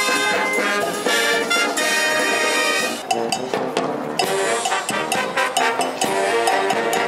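Marching band playing: saxophones, trumpets and sousaphones over drums. About three seconds in the music cuts abruptly to a different passage with sharper drum beats.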